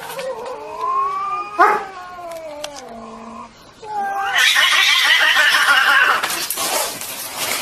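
A cat making long, wavering meows that glide up and down in pitch, then a louder, harsher yowl from about four seconds in that cuts off suddenly.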